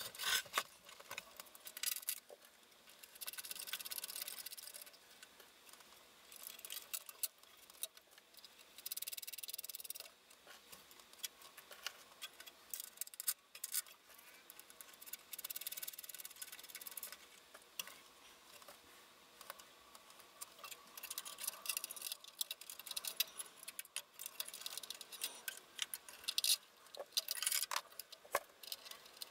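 Small mounting screws being handled and fitted by hand inside the sheet-metal chassis of a Heathkit SB-200 amplifier: faint, irregular metallic clicks and taps with short scraping rustles.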